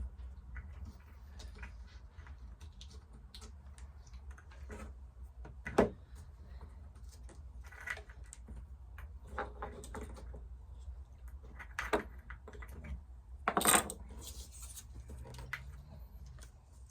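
Scattered light clicks, taps and knocks of craft materials being handled on a tabletop, with a few sharper knocks, over a steady low hum.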